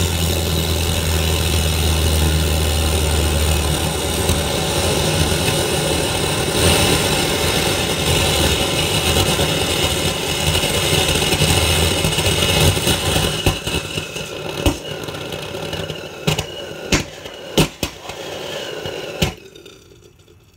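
Paraffin-wax and gaseous-oxygen hybrid rocket engine firing: a loud, steady rushing roar that after about twelve seconds turns ragged, with several sharp pops and crackles, and dies away near the end. The engine is burning unstably, starved of oxygen flow, and makes no measurable thrust.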